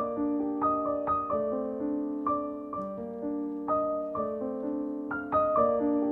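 Gentle solo piano background music: a slow, flowing melody of single notes over held chords.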